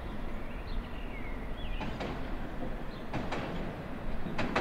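Light-rail tram running slowly along an elevated track: a steady low rumble, with three short sharp noises about two, three and four and a half seconds in.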